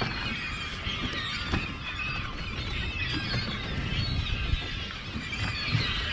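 A flock of gulls calling overhead, many short squealing calls overlapping, the sign of a bird show of birds diving on bait pushed up by feeding striped bass. Wind rumbles on the microphone underneath.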